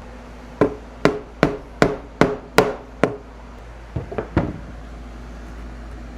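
A hammer knocking a wooden cabinet part into place: seven sharp, evenly spaced strikes on wood, about two and a half a second, then a quick flurry of lighter taps.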